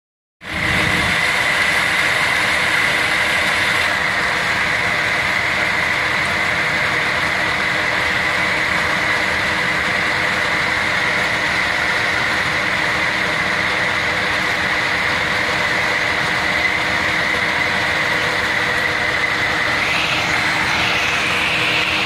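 Case IH combine running steadily while standing still, its engine hum carrying a steady high-pitched whine.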